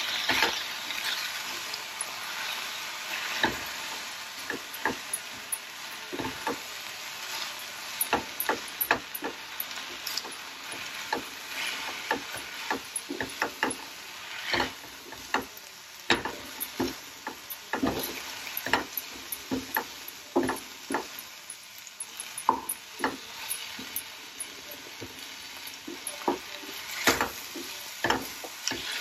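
Sorrel (gongura) leaves sizzling as they wilt in a little oil in a frying pan, stirred with a wooden spatula that scrapes and knocks against the pan at irregular intervals.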